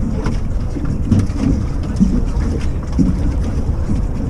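Steady low rumble of wind and water on an open boat, with faint, indistinct voices now and then.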